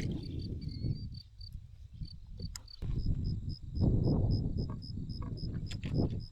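Crickets chirping steadily in a regular high pulse, about four chirps a second. Louder bouts of low rumbling noise on the microphone come and go over them.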